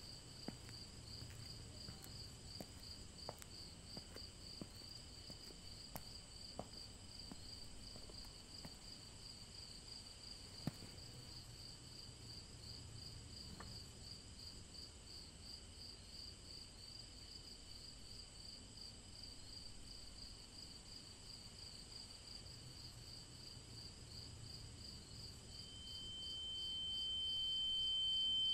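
Crickets chirping in a steady, pulsing high trill, with a few faint scattered taps. About three seconds before the end, a single high-pitched tone fades in and swells steadily louder.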